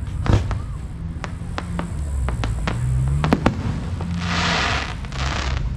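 Fireworks show: aerial shells bursting in a quick string of sharp bangs and pops, followed by a rushing hiss of crackling about four seconds in.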